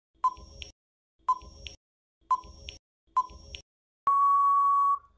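Countdown timer sound effect: four short beeps about a second apart, then one long steady beep about four seconds in, lasting about a second, signalling that the time is up.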